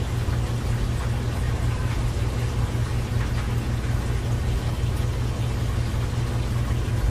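A steady low rumbling hum with an even hiss over it and a few faint ticks.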